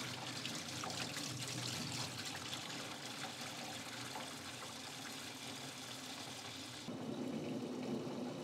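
Concentrated purple degreaser pouring in a steady stream from a 5-gallon plastic jug into a parts washer tank, splashing into the foamy solution already in it. The sound turns duller and lower near the end.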